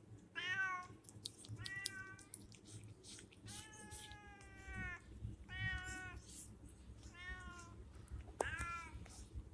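Domestic cat meowing repeatedly, about six separate meows, with one longer drawn-out meow in the middle.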